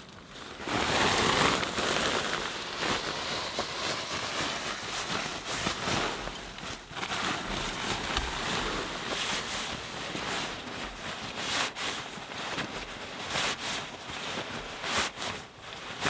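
Steady rush of rain and wind noise, with frequent short sharp clicks and knocks over it.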